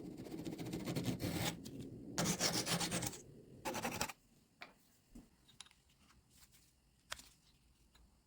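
A tool scraping over wood in about three rough strokes over the first four seconds, then a few light clicks and taps.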